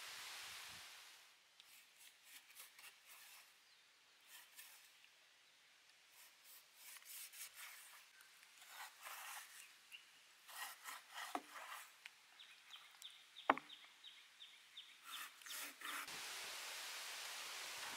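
Knife cutting through the skin and meat of a raw pork knuckle on a wooden cutting board: quiet, irregular rasping strokes, with one sharp knock past the middle. A steady hiss at the start and again near the end.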